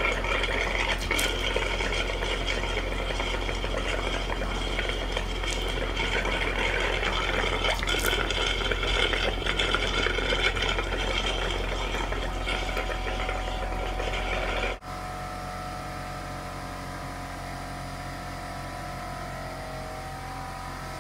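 Air compressor running while compressed air forces water out of the cold-water plumbing lines, the water gushing and sputtering as the lines are blown out for winterizing. About three-quarters of the way through, the sound cuts abruptly to a quieter, steady mechanical hum.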